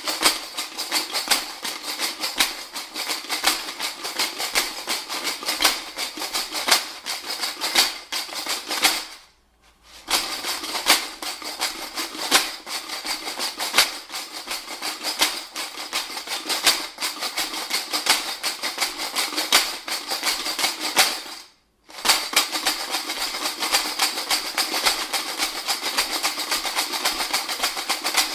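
Homemade shaker, a plastic iced tea jug filled with beer bottle caps, shaken in a steady rhythm: a bright, dense rattle of metal caps against each other and the plastic, stopping briefly twice, about nine and twenty-one seconds in.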